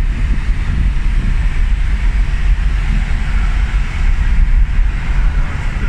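Steady low rumble of tyres, engine and wind, heard inside a car cruising on a motorway.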